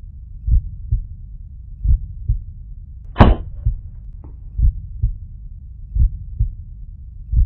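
Heartbeat sound effect: pairs of low thumps repeating about every one and a half seconds. About three seconds in comes one sharp crack with a brief ring, the shot of the suppressed .22 air pistol.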